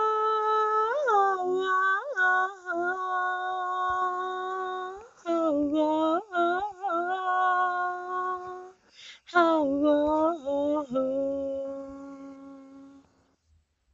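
A single voice singing a wordless "oh" melody a cappella, with long held notes and quick runs up and down in pitch. It breaks off briefly about nine seconds in, then comes back and fades out near the end.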